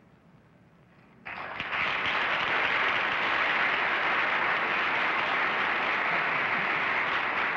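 Near silence for about a second, then a studio audience breaks into steady applause.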